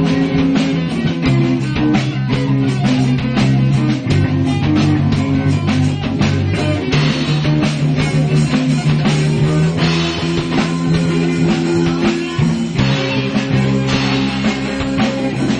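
Live rock band playing: electric guitars over bass guitar and drums, with a steady drum beat and the bass changing notes every few seconds.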